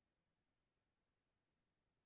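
Near silence: an essentially empty audio track with only a faint, even noise floor.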